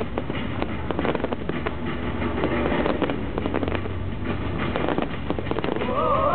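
Aerial firework shells bursting in a dense, irregular run of bangs and crackles. Music comes in right at the end.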